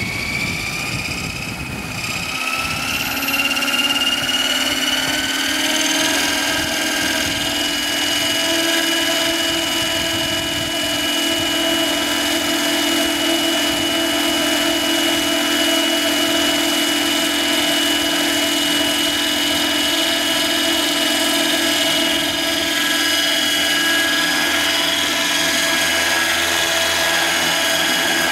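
Radio-controlled scale Bell 429 model helicopter spooling up: its rotor and drive whine rises in pitch over the first few seconds, then holds steady at flying head speed.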